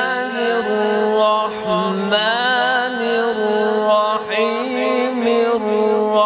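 A man reciting the Qur'an in the melodic tajweed style, drawing out long held notes with wavering ornaments.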